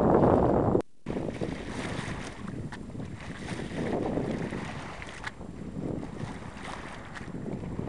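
Wind buffeting the microphone on a sailboat under sail, cut off suddenly about a second in. After that comes a softer wash of water along the moving hull with lighter wind, swelling and fading, and a few small ticks.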